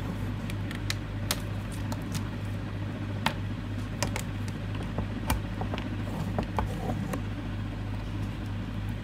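Scattered clicks and knocks of a plastic-cased analog multimeter being handled and set down on a wooden table, with its test-probe plugs being pushed into the sockets near the end, over a steady low hum.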